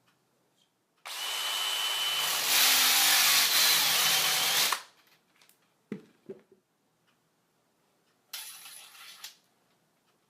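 Power drill spinning a SPIN tube-flaring bit at high speed for about four seconds, with a steady whine, getting louder partway through. Two light knocks and a shorter, quieter whirr follow.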